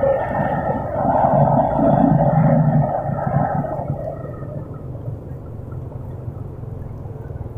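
Road traffic noise heard from a moving motor scooter: engines and rushing air, loud for about four seconds and then quieter.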